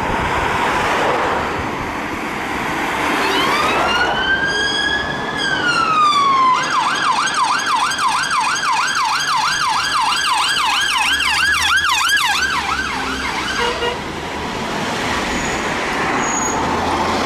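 Police van siren sounding a long wail that rises, holds and falls, then switching to a fast yelp of about three cycles a second for some seven seconds, and beginning another wail near the end. Traffic noise runs underneath.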